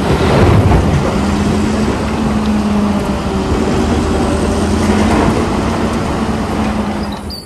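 Caterpillar 992G wheel loader's diesel engine running with a steady drone as it works, tipping its bucket into a truck trailer; it fades slightly near the end.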